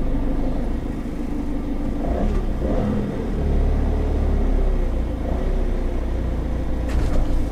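The diesel engine of a Peugeot Boxer-based Weinsberg CaraCompact motorhome running as the van rolls slowly at low speed, heard from inside the cab as a steady low rumble.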